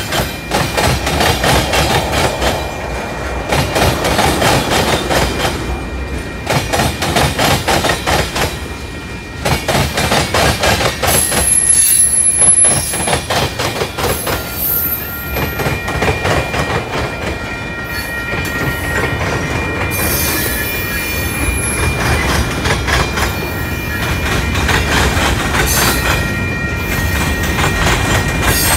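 Freight train's tank cars and boxcars rolling past close by: a steady clatter of steel wheels over the rail joints. A thin, steady high-pitched squeal from the wheels joins about halfway through.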